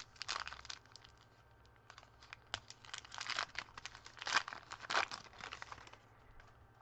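Foil wrapper of a trading card pack crinkling and crackling as it is handled and torn open, in a run of sharp crackles for about six seconds. The loudest crackles come about four and a half and five seconds in.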